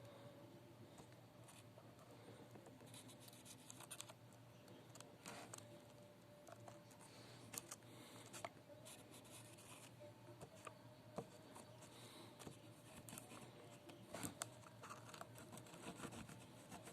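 Faint scratching and scattered small ticks of a soldering iron tip being worked against a wire end while tinning it, over a steady low hum.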